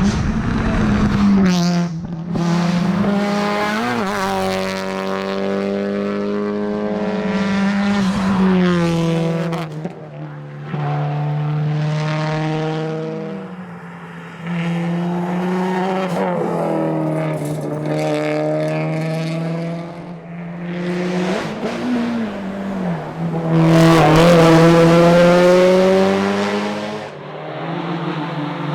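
Subaru WRX STI's turbocharged flat-four engine under hard acceleration on a rally stage, revs climbing and dropping again and again as it shifts gears and lifts for corners; it is loudest about 24 s in.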